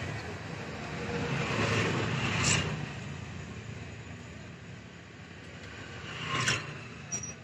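Steady low rumble of passing road traffic, swelling for the first couple of seconds, with two short sharp noises about two and a half and six and a half seconds in.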